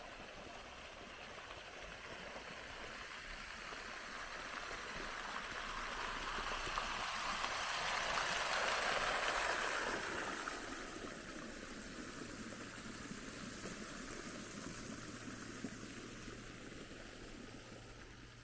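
Park fountain's water jets splashing into the basin, growing louder as the fountain is approached, loudest about halfway through, then fading as it is left behind.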